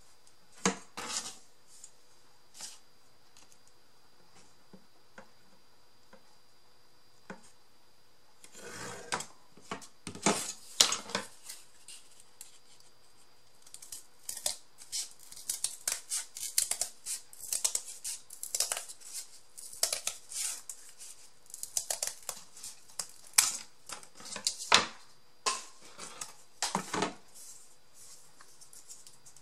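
Scissors cutting, a few separate snips at first, then a short burst of cutting, then a long run of quick, repeated snips that stops near the end.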